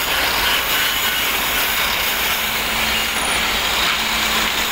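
Pulley-driven drilling machine running steadily while boring holes in wood: a continuous noisy whir over a low hum.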